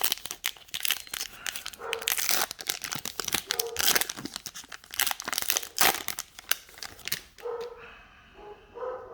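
A trading card pack wrapper being torn open and crinkled, with a steady crackling that eases off near the end. A pet dog barks several times in the background, most clearly in the last second or two.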